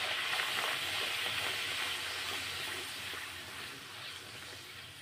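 Wheat-flour puri deep-frying in hot oil in a kadai: a steady sizzle that gradually fades over the last couple of seconds.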